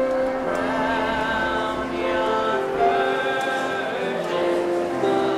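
Group of voices singing a holiday song with musical accompaniment, the notes held with vibrato.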